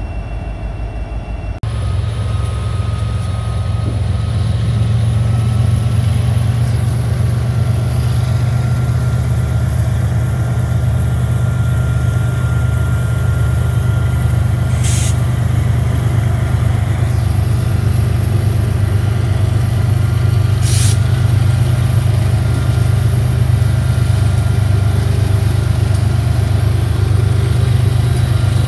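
Diesel-electric locomotives at the head of a freight train passing close by, their engines running with a loud, steady low drone. Two short hisses cut through, about halfway and two-thirds of the way in.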